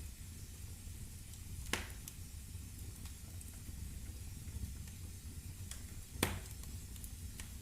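Firewood burning in a fireplace, crackling with small snaps over a steady low rumble and hiss. Two sharper pops stand out, about two seconds in and about six seconds in, the second the loudest.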